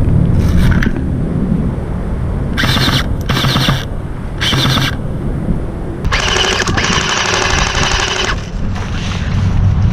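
Airsoft electric gun firing full-auto: three short rattling bursts, then one longer burst of about two seconds, over a steady low rumble of wind buffeting the microphone.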